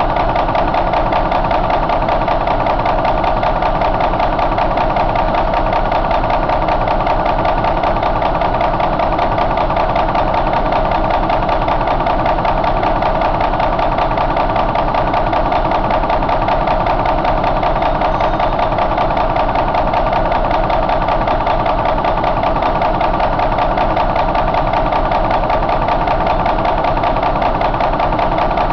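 2001 Cummins N14 CELECT+ inline-six diesel engine idling steadily at an even speed.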